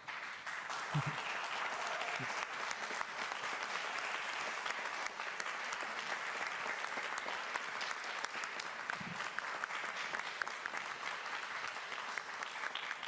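Crowd applauding: many people clapping steadily after a speech, starting suddenly and fading out near the end.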